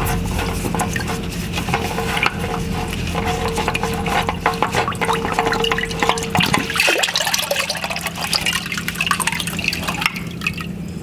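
Engine oil pouring and dripping into a drain pan as the cartridge oil filter cap comes off the filter housing, with small clicks of the cap and filter being handled.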